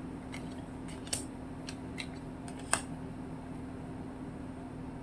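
Tarot or oracle cards being handled: five short, sharp snaps and taps, two of them louder, about one and about three seconds in, over a steady low hum.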